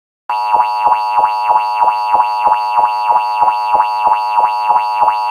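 Harsh electronic alert tone, a buzzy tone pulsing about three times a second, starting abruptly and cutting off suddenly: the attention signal of an emergency-alert broadcast.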